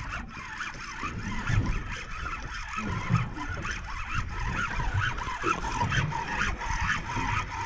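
Fishing reel being wound steadily as a hooked fish, a coral trout, is hauled up from the reef bottom, over a low rumble and many wavering high-pitched tones.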